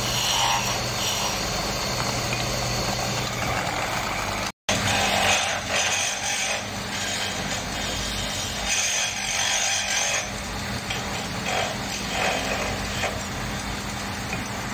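Small wood-turning lathe motor running with a steady hum, while a turning tool scrapes the spinning wood in rising and falling passes. The sound drops out for an instant about four and a half seconds in.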